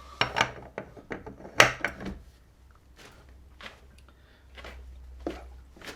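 Metal clicks and knocks of a socket and 3/4-inch breaker bar being fitted and worked on the motorcycle's rear axle nut. The loudest knock comes about a second and a half in, with a few more scattered after it.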